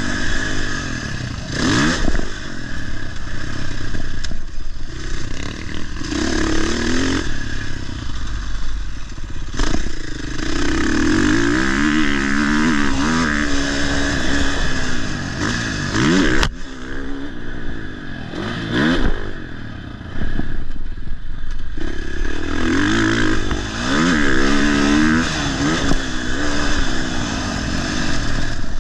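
Motocross dirt bike engine revving hard and backing off over and over, its pitch climbing and falling every few seconds.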